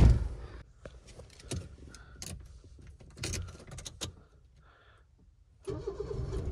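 A car door shuts with a loud thump, followed by light clicks and key rattles inside the cabin of a Toyota Vitz. A few seconds later the engine starts and runs steadily.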